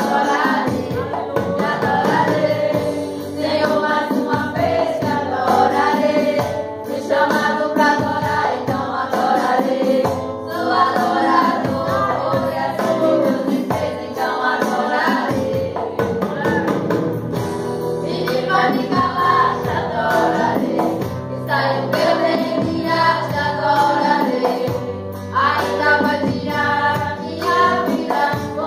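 A girl singing a gospel worship song into a microphone, amplified over instrumental accompaniment, her melody rising and falling in sung phrases throughout.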